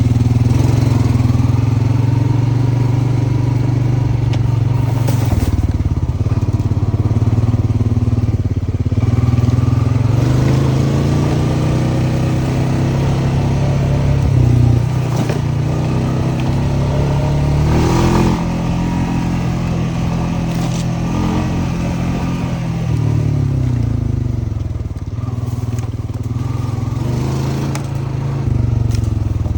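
Honda FourTrax ATV's single-cylinder four-stroke engine running under way on a trail. Its pitch rises and falls with the throttle, with a clear rev just past the middle, and a few brief knocks.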